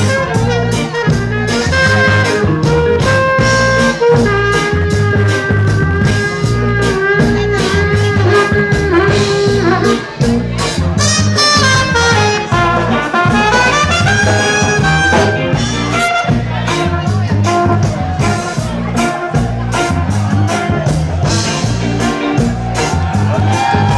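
Live ska band playing an instrumental passage: a held lead melody over a deep bass line and a steady off-beat rhythm.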